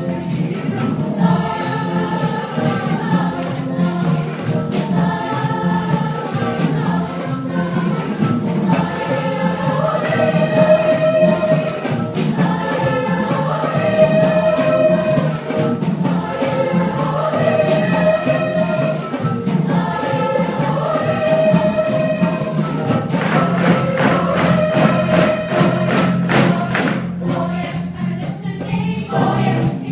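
Children's choir singing, holding long notes in repeated phrases of about two seconds.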